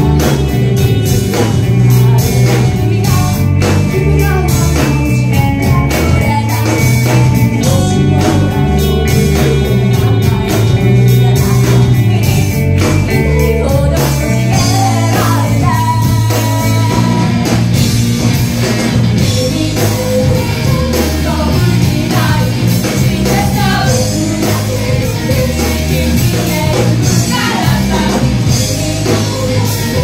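A rock band playing live: a female lead singer over electric bass, electric guitar and drums, loud throughout.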